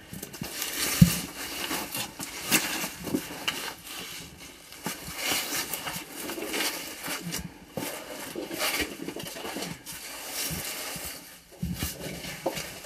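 Irregular scraping, rustling and knocking of a caver crawling through a tight rock crawlway, clothing and boots against the rock, with one sharp knock about a second in.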